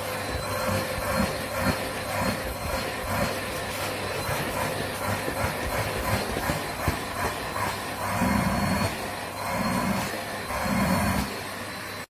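Vytronix PET01 bagless cylinder vacuum cleaner's 800 W motor running steadily with a constant whine and rush of suction, with a few dull bumps in the last few seconds; it cuts off abruptly at the end.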